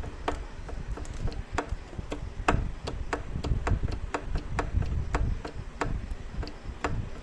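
Sharp metallic clicks, about three a second, irregularly spaced: a motorcycle clutch basket being rocked back and forth by hand, its loose play knocking, the suspected source of the clutch housing noise.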